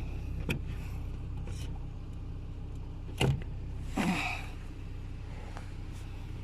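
Hands working at a car's brake pedal, turning the brake light switch: a light click, a sharp knock about three seconds in and a short scrape just after, over a steady low hum.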